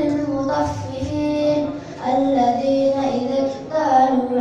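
A child reciting the Qur'an in the melodic qiroah style, holding long drawn-out notes that step up and down in pitch.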